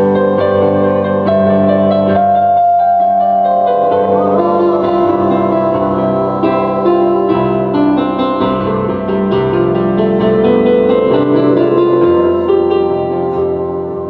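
Keyboard playing slow, sustained chords as worship music.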